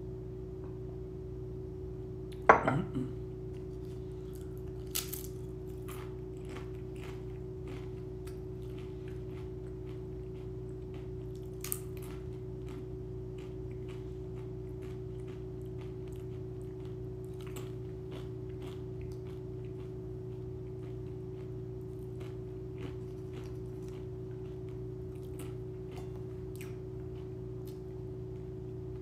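A drinking glass set down on a kitchen counter with one sharp knock and brief ring about two and a half seconds in. After it come scattered faint crunches and clicks of chips being eaten, over a steady electrical hum.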